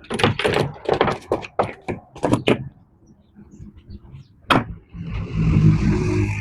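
Workpiece and clamps being handled on a wooden jig: a quick run of knocks and clatter, a single sharp knock about four and a half seconds in, then a scraping slide near the end.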